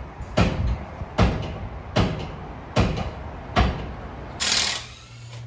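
A series of hard hammer strikes, one about every 0.8 s, typical of a hub being knocked loose during a wheel hub replacement, followed by a brief hiss a little past four seconds in.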